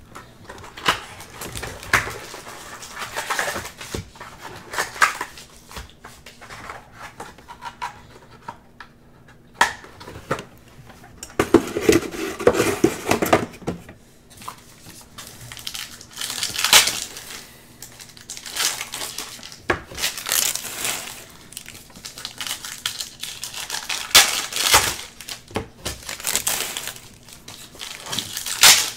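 A sealed hobby box of football trading cards being torn open by hand and its packs pulled out and handled: irregular bursts of tearing and rustling wrapper, cardboard and foil packs, with short quiet gaps between.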